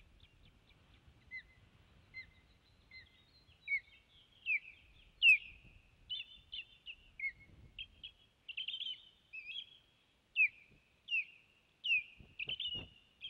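Osprey giving a series of high, whistled alarm calls: short downward-slurred notes, faint at first, then louder and more frequent from about four seconds in. The calls are given while an intruding osprey is near the nest.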